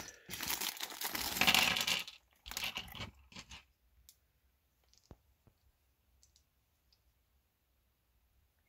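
Thin plastic Lego minifigure bag crinkling as it is torn open and shaken out for about three seconds, followed by a few light clicks of small plastic Lego pieces dropping onto the table.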